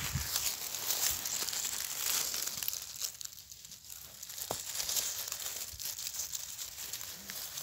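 Dry grass and pine needles rustling and crackling as a hand and the camera push through low vegetation around a mushroom. The crackling is busiest at first, thins out in the middle, and has one sharp snap at about four and a half seconds.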